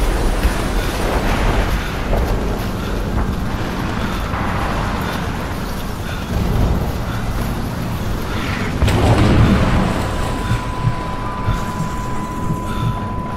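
Battlefield sound effects: deep rumbling artillery explosions, with blasts swelling a little past the middle and again a few seconds later. A steady high ringing tone starts about three-quarters of the way through and holds.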